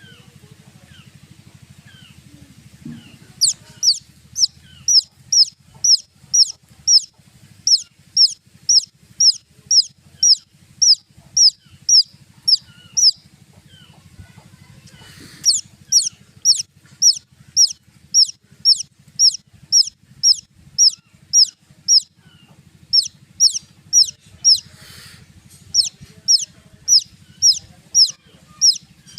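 Baby chick peeping loudly in a fast, even series of high, short, falling peeps, about two a second, starting a few seconds in, with a brief pause about halfway through.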